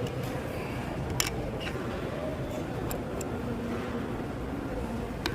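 A few short, light plastic clicks from a car key fob being handled and worked open, over steady low background noise. The sharpest click comes about a second in, with several fainter ones over the next two seconds.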